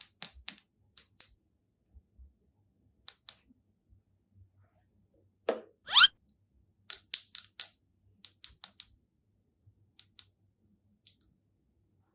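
Toy packaging being handled and opened: a run of short, sharp clicks and snips, some in quick clusters. About six seconds in, one rising bloop sound effect.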